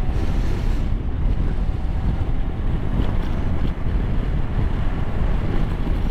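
Wind roaring over the microphone of a Triumph Tiger Sport 1050 at road speed, with the motorcycle's three-cylinder engine running steadily underneath.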